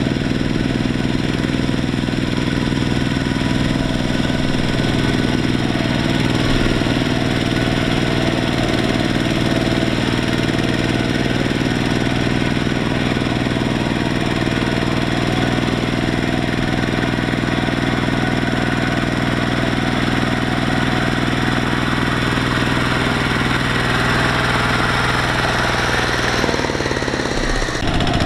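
Kubota two-wheel walking tractor's single-cylinder diesel engine running steadily under load, pulling a trailer of rice sacks through mud. The tone shifts near the end.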